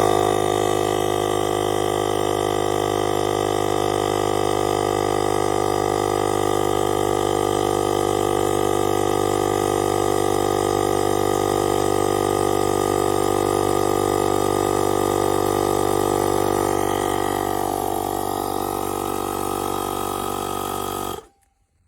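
Cordless tyre inflator's small piston compressor running steadily with an even, pitched buzz, then cutting off suddenly near the end.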